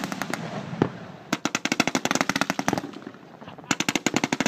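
Fireworks going off on the ground in rapid runs of sharp bangs, about ten or more a second: one run starting about a second in and lasting a second and a half, another near the end, with scattered crackling between.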